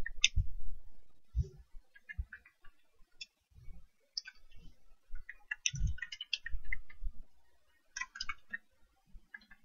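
Computer keyboard being typed on: keys clicking in short irregular runs with pauses between.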